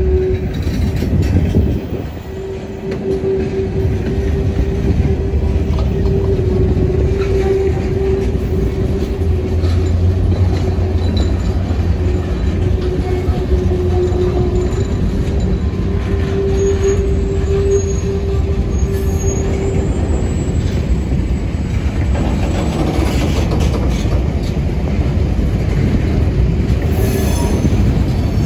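Freight cars rolling slowly past with a steady low rumble. A sustained wheel squeal comes and goes over it and dies away about two-thirds of the way through.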